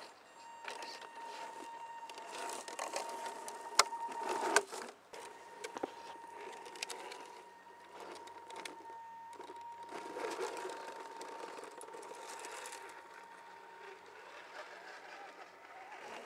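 Scale 4x4 RC crawler truck driving over forest litter: a steady high whine under the rustling and crackling of twigs and leaves under its tyres, with two sharp clicks about four seconds in.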